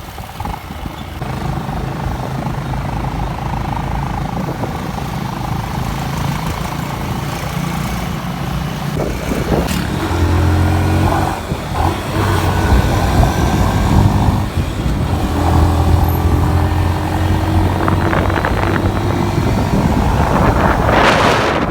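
Motor vehicle engine running steadily while under way, its pitch shifting a couple of times, with wind hitting the microphone near the end.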